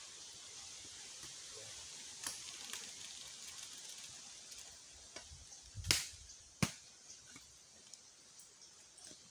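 Small open wood fire under a cooking pot: a steady high hiss with a few sharp crackles and knocks, the loudest about six seconds in.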